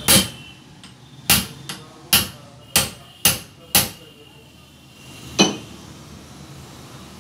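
Hand hammer striking a steel tube held upright in a bench vise while a gas mono-shock absorber is being repaired: sharp metal-on-metal blows with a short ring, six coming faster and faster, then a last single blow near the end.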